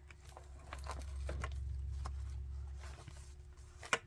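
Light taps and rustles of a handmade paper journal's pages being handled and turned, with a sharper tap near the end, over a low rumble that swells and fades within the first three seconds and a faint steady hum.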